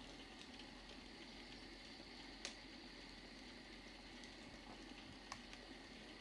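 Faint wood fire crackling: a steady soft hiss with scattered sharp pops, the loudest about two and a half seconds in and another a little after five seconds.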